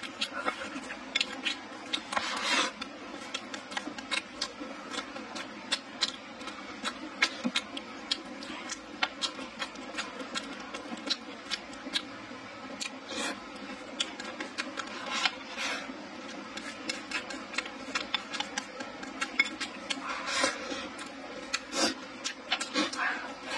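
Close-miked chewing and lip-smacking of a person eating rice and meat: a steady run of small clicks and smacks, several a second, with a few longer, noisier mouth sounds in between.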